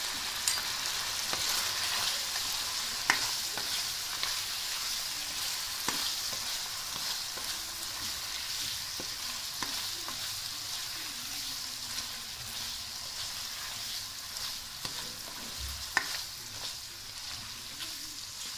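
Chicken pieces sizzling in hot oil in a non-stick kadai, stirred with a spoon that scrapes and knocks against the pan. A few sharp clicks stand out, the loudest about three seconds in and again near the end.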